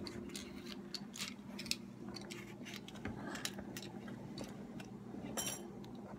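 Light, irregular clicks and taps of plastic Lego pieces and minifigures being handled on a tabletop, over a faint steady hum.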